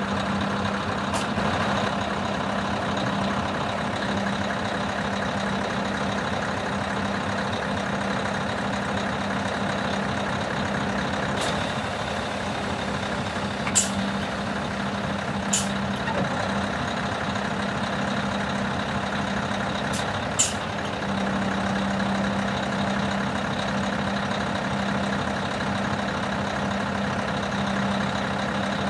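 Scania R620 hooklift truck's V8 diesel running steadily, driving the hydraulics as the hook arm folds down, a continuous hum. A handful of short sharp clicks come mostly in the middle.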